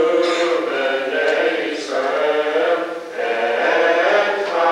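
Several voices singing a liturgical prayer chant together in held, sustained notes, in phrases with short breaks between them. It cuts off suddenly at the very end.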